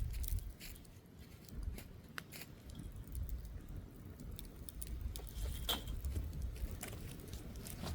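Wood campfire crackling with scattered sharp pops over a low, gusting rumble of wind on the microphone.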